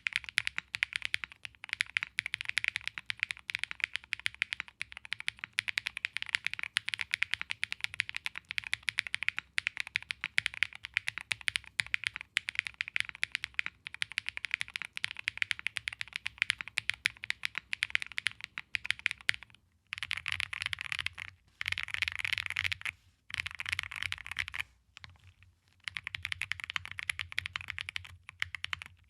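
Fast, continuous typing on an Angry Miao AM Compact Touch 65% mechanical keyboard, keys clacking in a dense stream. A few brief pauses break it about two-thirds of the way through.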